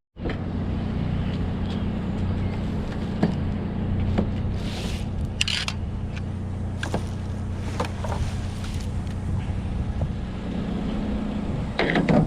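GMC Sonoma pickup truck running steadily, with engine hum, road noise and a few light knocks and clicks.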